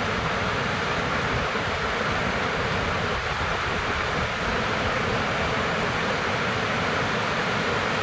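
Heavy rain falling steadily, a dense even hiss of drops with a low rumble beneath.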